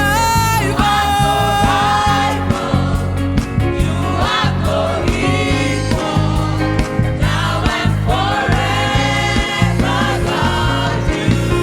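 Youth gospel choir singing with band accompaniment and a steady bass beat.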